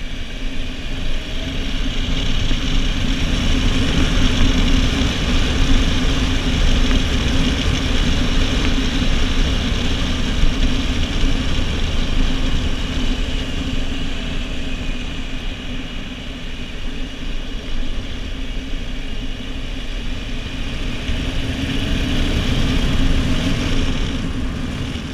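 Motorcycle engine running at a steady cruise, with heavy wind and road noise from riding at speed. The engine note holds an even pitch, lifting slightly near the end.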